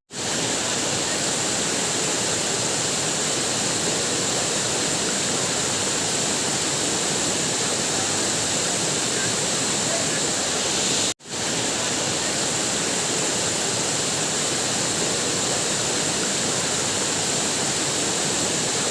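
Waterfall: a steady rush of falling water. It cuts out for an instant about eleven seconds in and fades straight back.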